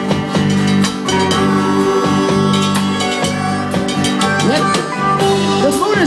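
Live band playing an instrumental break: a harmonica plays lead over strummed acoustic guitar and a drum kit keeping a steady beat.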